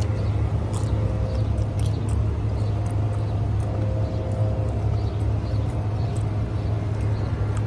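Steady low rumble of outdoor background noise, with faint clicks of a plastic fork against a food bowl.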